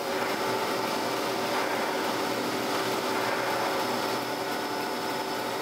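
Surface grinder running with a steady whir, its spinning wheel being fed down to just barely touch the top of a magnetic chuck.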